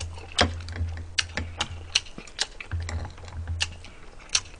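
Metal chopsticks clicking as food is picked up from the dishes: short, sharp, irregular clicks, a few a second, over a low hum.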